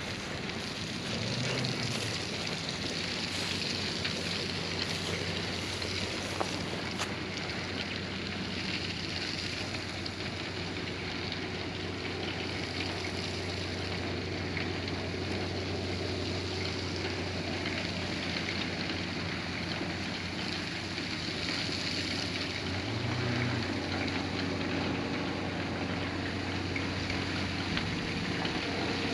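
Dump truck engine running steadily under a continuous rushing hiss as the truck delivers rock for the driveway.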